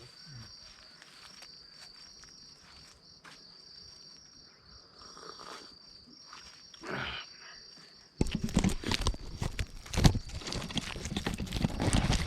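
Insects, likely crickets, chirping steadily in a high pitch, with one short falling call about seven seconds in. About eight seconds in, loud close rustling and knocking starts suddenly and drowns them out.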